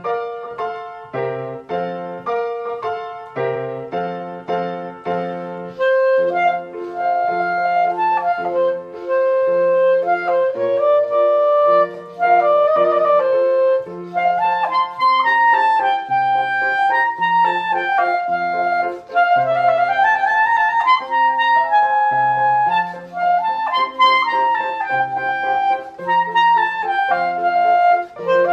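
Clarinet playing a melody with piano accompaniment. The piano plays short repeated chords and bass notes, and the clarinet line becomes more active with quick ornaments about halfway through.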